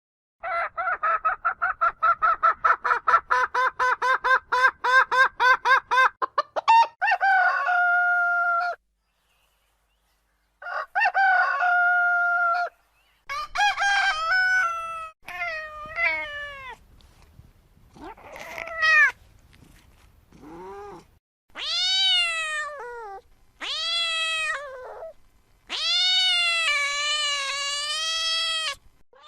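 Chickens calling: a fast run of clucks that ends in a drawn-out cackle, a second shorter run, then several long calls that rise and fall in pitch, the last ones like a rooster crowing.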